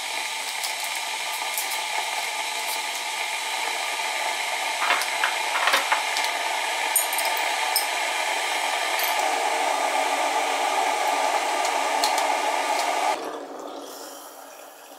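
Smeg electric kettle heating up to the boil, a steady rushing hiss with light clinks of a jar and spoon about five to seven seconds in. Near the end the rushing dies away as the kettle switches off and water is poured.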